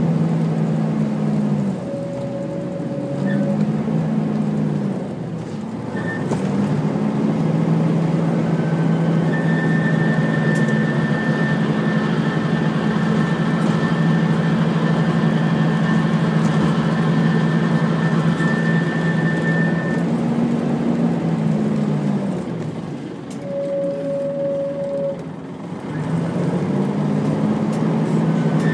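Interior of a Volvo B10BLE bus under way: the engine and ZF automatic gearbox drone, with the cooling fan running. The engine note falls and picks up again three times as the bus slows, changes gear and pulls away, and a thin high whine holds through the middle.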